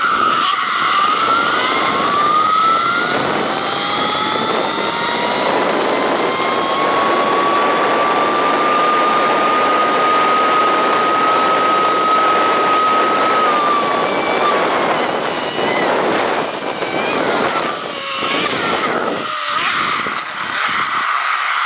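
Zipline trolley running along a steel cable: a whine that rises in pitch as it picks up speed, holds steady, then drops away about fourteen seconds in, under a loud rush of wind on the microphone. A few knocks near the end as the ride slows toward the landing.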